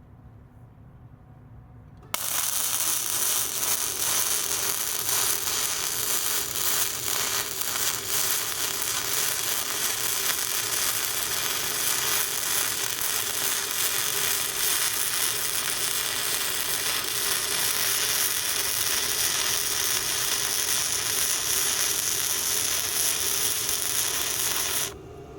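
Welding arc from a BestArc MIG145 inverter welder laying a bead: a steady, loud crackle that starts suddenly about two seconds in, runs for over twenty seconds, and cuts off abruptly near the end as the trigger is released.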